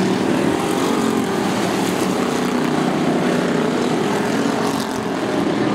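A field of hobby stock race cars lapping the track, their engines running together in one steady, continuous mix.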